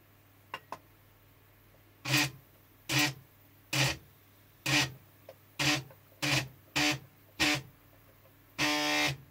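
TEVO Tornado 3D printer stepper motor buzzing in about nine short bursts, the last one longer, as it jerks the print head along the X-axis gantry. The shaking buzz is the axis fault that has followed the Y-axis cable to this motor, which the owner puts down to wiring in the control box.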